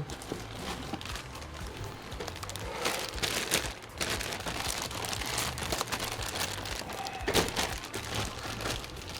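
Plastic packaging crinkling and rustling with scattered clicks as the cables of a new modular PC power supply are handled, busiest about three seconds in and again near seven seconds.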